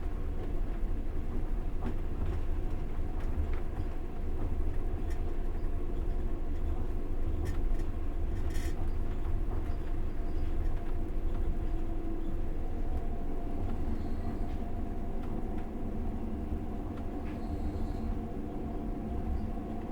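Passenger train running along the track, heard from inside the carriage: a steady low rumble of wheels on rails with a constant whine. A short hiss sounds about eight and a half seconds in.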